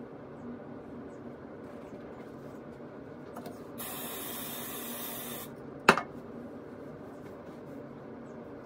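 Aerosol can of got2b freeze hairspray sprayed in one hissing burst of about a second and a half, a little under halfway in. Shortly after comes a single sharp knock, over a steady low hum.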